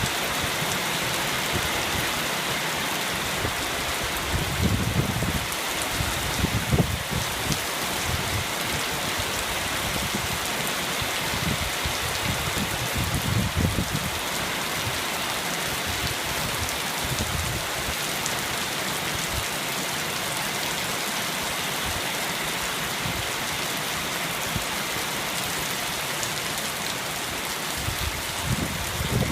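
Steady heavy rain falling and pattering on surfaces, with a few brief low rumbles rising over it now and then.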